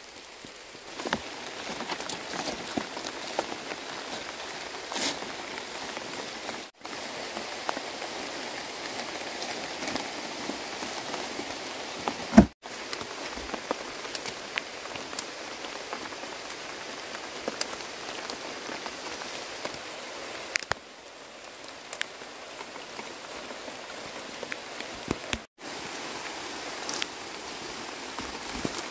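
Steady rain falling on an umbrella and the surrounding leaves, with scattered sharp drop hits and one louder knock about twelve seconds in.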